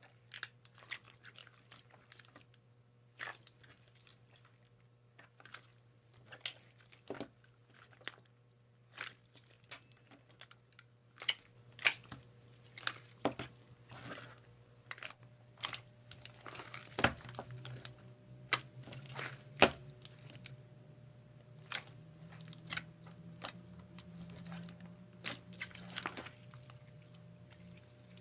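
Slime being squeezed and poked by hand, giving irregular sharp crackles and pops that come faster after about ten seconds.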